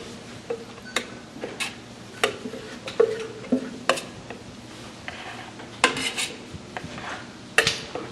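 Primer being mixed in a metal can: a stirring tool clinks and knocks irregularly against the container, about a dozen sharp strikes, several ringing briefly.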